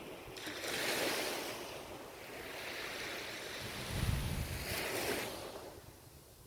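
Ocean surf washing ashore in two swells, the second with a low rumble about four seconds in.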